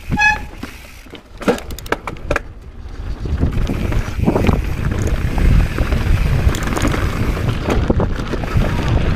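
Mountain bike rolling down a rock slab and onto a gravel track: tyre rumble and wind buffeting the camera microphone, growing louder about three seconds in, after a few sharp clicks.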